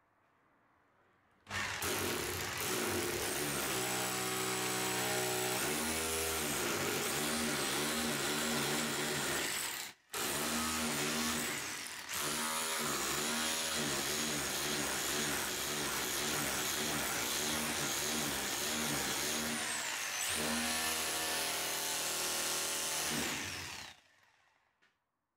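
Makita cordless drill running under load as it drives a rod into a heated leaf-spring rubber bush, its pitch wavering as the load changes. It stops briefly about ten seconds in, dips again a couple of seconds later, then cuts off near the end.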